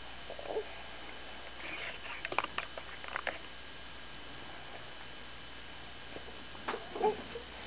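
A baby shifting on a crib mattress: a few soft, faint grunts and scattered rustles and small clicks of bedding over a steady low hiss.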